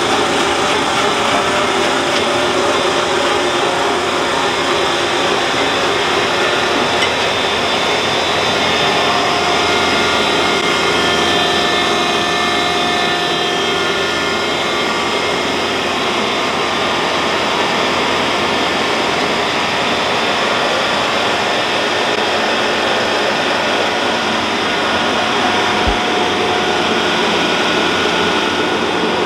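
John Deere tractor and a Lewis Brothers windrower running steadily, the windrower churning and rolling dry chicken litter into a windrow.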